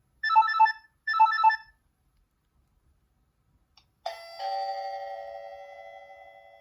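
Nokia 6260 ringtones: two short bursts of quick electronic beeping notes, then about four seconds in a single bell-like chime that rings on and slowly fades.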